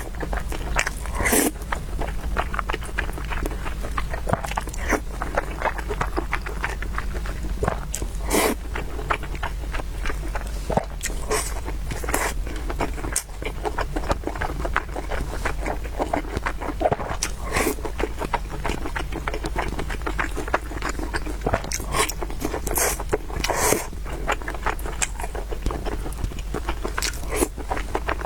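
Close-up eating sounds: a person chewing and biting food, with many short, irregular clicks and smacks over a steady low hum.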